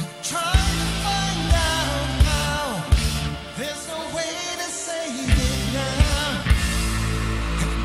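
Live rock band playing: a drum kit hitting about once a second over held bass notes, with keyboards and a melody line that bends in pitch.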